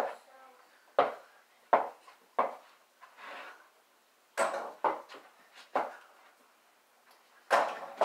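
Small rubber ball bouncing off the floor and being caught: a run of sharp thuds about a second apart, then a pause and a louder cluster of knocks near the end.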